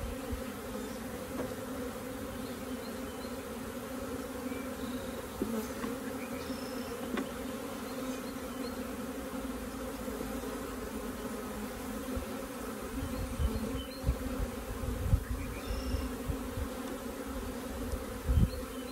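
Honeybee swarm buzzing in a steady hum, just shaken into a Langstroth hive box, with a few light knocks as wooden frames are slid back in. Bouts of low rumble come in the second half.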